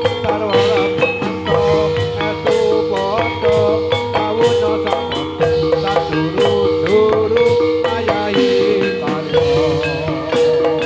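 Javanese gamelan-style music for gedruk dance: struck metal mallet instruments playing a quick, even rhythm under a held melody tone.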